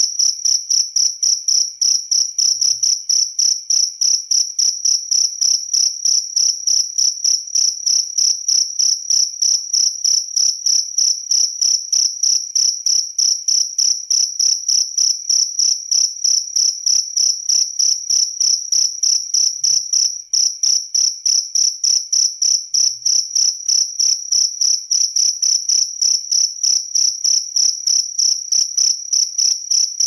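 A cricket stridulating, its raised wings rubbing together: a loud, high-pitched chirping made of rapid, evenly spaced pulses that runs on without a break.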